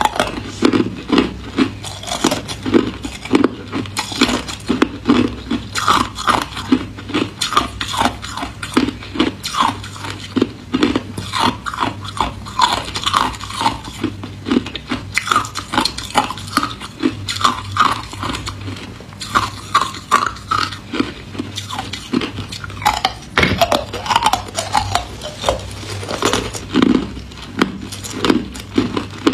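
Hard ice cubes being bitten and chewed: a continuous run of sharp, crisp crunches and cracks, two or three strong ones a second.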